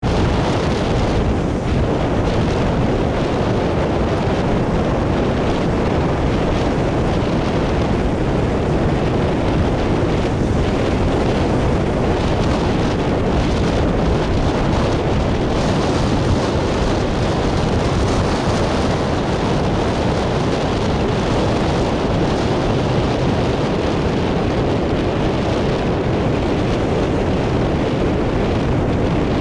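Steady wind noise buffeting the camera microphone: a constant, loud rush without a break.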